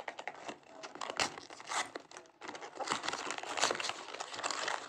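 A small printed cardboard box being torn and pulled open by hand: card and paper crinkling and tearing in a dense run of short crackles, busiest in the second half.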